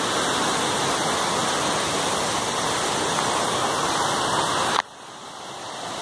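Steady rushing noise of a nearby waterfall. About five seconds in it drops off suddenly, then builds back up gradually.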